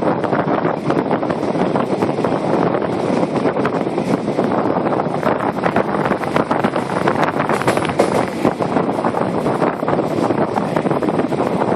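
A moving electric commuter train heard from an open door or window: a steady rush of wind buffeting the microphone, over the continuous rumble and rapid clatter of the wheels on the rails.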